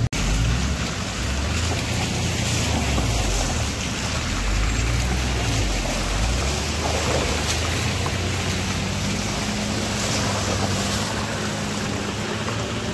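Vehicle engines running at low speed, a Maruti Gypsy among them, as they crawl through muddy, water-filled potholes, with tyres splashing under a steady rushing noise. The low engine hum shifts about halfway through and settles into a steady tone.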